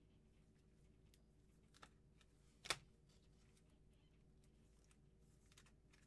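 Near silence: quiet room tone with a few faint ticks and one short, sharp click about two and three-quarter seconds in.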